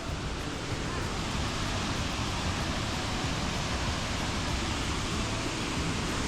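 Sol Duc Falls: a steady, even rush of falling water with no breaks.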